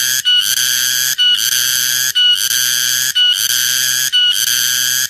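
Cicada singing: a loud, continuous buzzing drone with many overtones. It breaks briefly about once a second and resumes at once.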